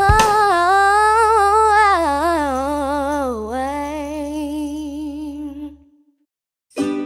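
A voice holds the long, wavering final note of a children's pop song over a steady low chord, fading out about six seconds in. After a short silence, plucked-string music starts near the end.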